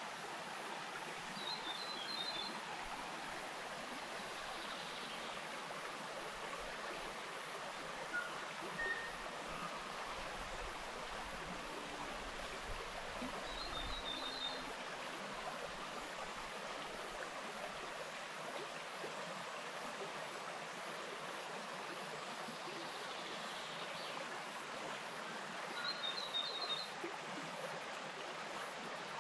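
A small bush stream running with a steady rush of water. A bird gives a short burst of high chirping notes three times, about every twelve seconds.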